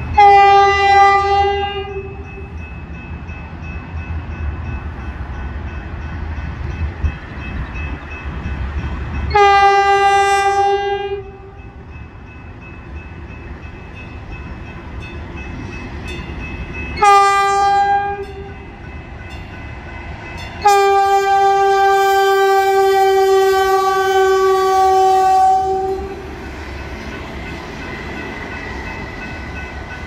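Horn of a Metrolink Arrow Stadler FLIRT diesel multiple unit sounding the grade-crossing signal: two long blasts, a short one, then a final long blast held about five seconds, warning of its approach to a road crossing. It is a single steady note.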